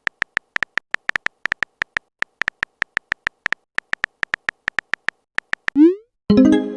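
Rapid electronic beeps: one high tone blipping about six times a second in an uneven rhythm. Near the end the beeps stop, a short rising synth whoop sounds, and a loud buzzy electronic tone starts just before the end.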